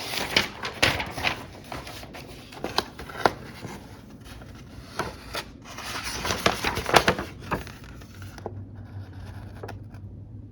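Paper instruction sheet of a plastic model kit being unfolded and handled, rustling and crackling in irregular bursts with light clicks of parts, dying down after about eight seconds.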